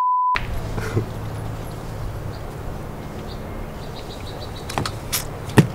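A short censor bleep, a single steady beep with all other sound cut out, right at the start. Then outdoor background with a steady low hum, a few faint high chirps in the middle and two sharp knocks near the end.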